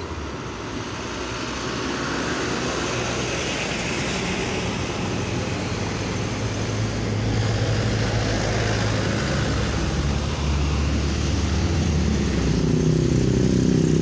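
A large bus running past on the road, its engine and tyre noise growing steadily louder. The low engine note drops partway through, then climbs again near the end.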